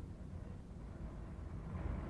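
Wind blowing through a forest: a steady low rush that swells briefly in a gust near the end.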